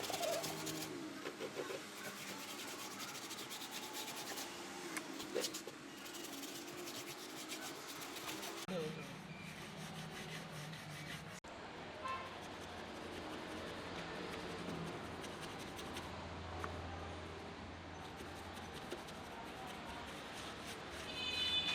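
Rubbing and scraping with scattered clicks and knocks, under faint voices.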